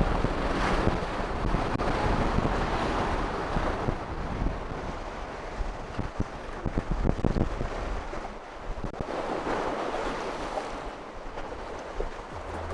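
Waves breaking on the Lake Huron shore, surging and easing several times, with strong wind buffeting the microphone in a low rumble.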